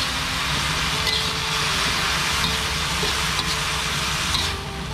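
Durian flowers stir-frying in a hot wok: steady sizzling, with faint scrapes and taps of a slotted spatula turning the food. The sizzle dips briefly near the end.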